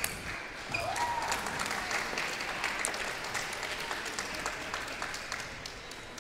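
Spectators clapping after a point in a table tennis match, the applause tapering off near the end.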